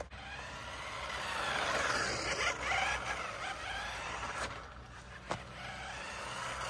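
Brushless motor of a UDIRC 1607 Pro 1/16-scale RC drift car whining, with its tyres hissing on asphalt, while it runs on the low speed setting. The whine rises and falls in pitch with the throttle. It fades about two-thirds in and grows louder again near the end.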